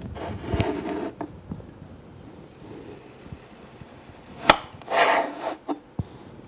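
Kinetic sand being scraped and worked with plastic tools: a rasping scrape for about the first second and another about five seconds in, with a sharp click just before the second scrape.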